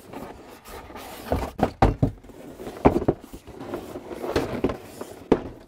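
Cardboard boxes being handled: a retail box sliding out of a shipping carton and being turned over, with scraping and rustling and several sharp knocks and thumps.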